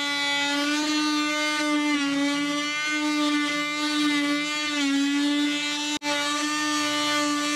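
Fein oscillating multi-tool running steadily, a high buzz whose pitch dips slightly now and then as it cuts plastic trim. The sound drops out for an instant about six seconds in.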